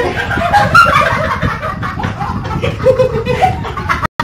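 Several people laughing loudly together, the sound cutting out for an instant near the end.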